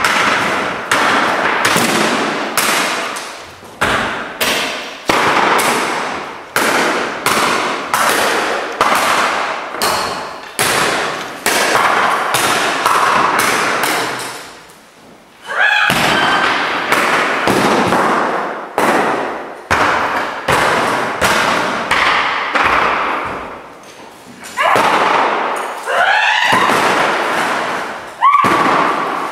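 Electric guitars being smashed against the floor and struck with hammers: a rapid, irregular series of loud crashing hits, each ringing out and fading, with a short lull about halfway through and a few wavering pitched whines near the end.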